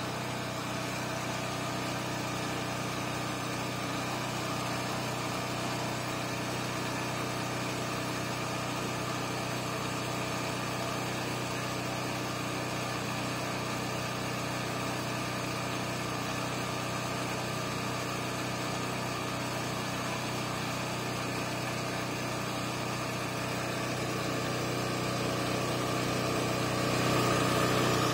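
United Power 3300-watt portable gas generator's engine running at a steady speed, a constant engine drone with a held hum. It grows a little louder over the last few seconds.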